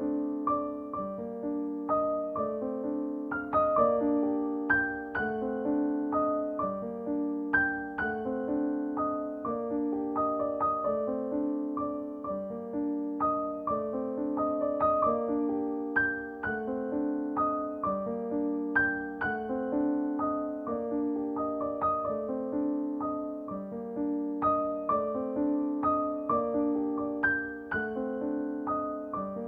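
Gentle background piano music: a soft, steady melody of repeating notes over a sustained accompaniment.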